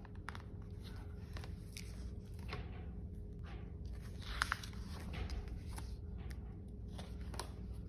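A hardcover picture book being opened and its pages turned by hand: faint paper rustles and light taps, the strongest about halfway through.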